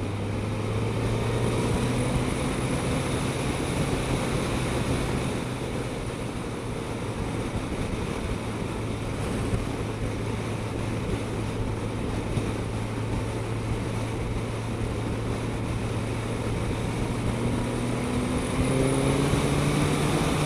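Suzuki GSX-S1000GT's inline-four engine running steadily at cruise over wind rush, its pitch rising near the end as the bike accelerates smoothly.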